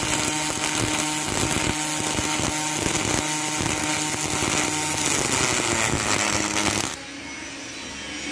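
MIG welding arc from a CEA TreoStar welder with a push-pull torch: a loud, steady hiss and crackle with a faint steady hum under it. The arc stops about seven seconds in, leaving a quieter hiss.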